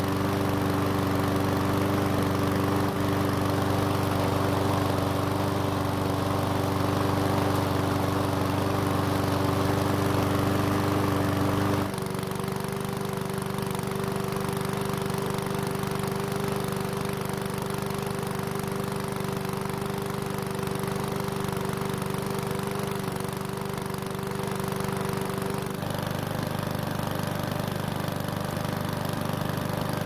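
Powersmart walk-behind mower's engine running steadily at a constant speed just after a cold start, its cleaned carburettor now delivering fuel.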